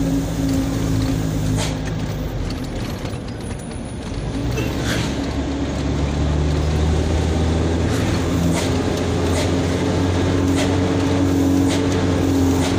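Box truck's engine running, heard from inside the cab, with a steady low drone that drops in level between about two and four seconds in and then comes back louder. Short sharp knocks or rattles now and then, about half a dozen times.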